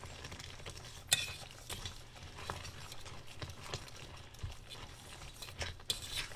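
A metal utensil stirring thick creamed spinach in a stainless steel saucepan, scraping and clinking against the pan at irregular moments, with a sharper clink about a second in.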